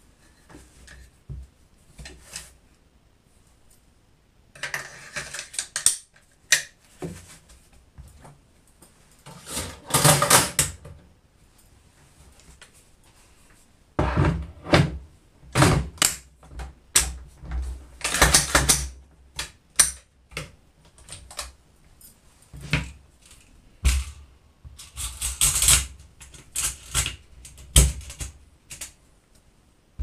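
AR-15 rifle parts being picked up and handled: irregular clicks and knocks with several bursts of rustling, sparse at first and busier from about halfway.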